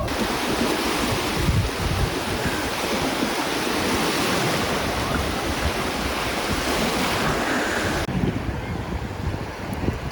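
Sea surf washing in steadily with wind buffeting the microphone; the hiss thins suddenly about eight seconds in.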